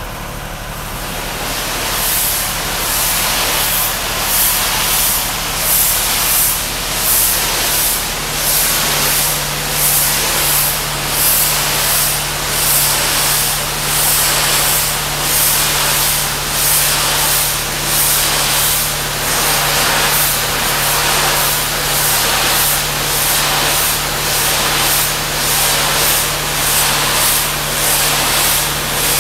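Pressure washer spraying a high-pressure water jet, a loud hiss swelling and fading about once a second, with an engine running steadily underneath.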